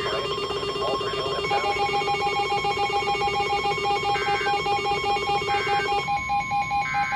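Weather alert radio receivers sounding electronic alert tones: several tones and beeps overlap, one pulsing rapidly and others beeping on and off, and about six seconds in the steady lower tone stops and a different steady tone takes over.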